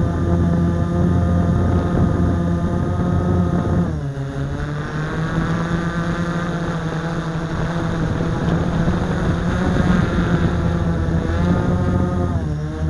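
Blade 350 QX quadcopter's four brushless motors and propellers buzzing, heard close up from the onboard camera. The pitch dips and climbs back about four seconds in and again near the end as the throttle changes.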